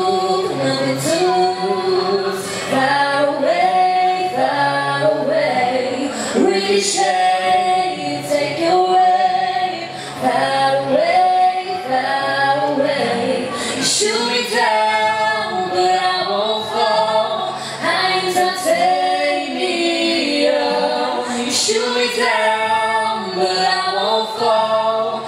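Live duet of a woman singing lead and a man singing with her, to a strummed acoustic guitar.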